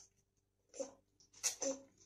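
Toothbrush bristles scrubbing a toddler's teeth in short strokes, with the child's brief muffled grunts about a second in and near the end.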